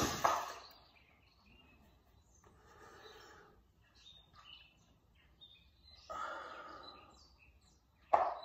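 Recoil starter of an Echo SRM-225 two-stroke string trimmer pulled on choke for a cold start: a few separate pulls, each a short noisy whir that fades, one about six seconds in and another near the end, without the engine catching.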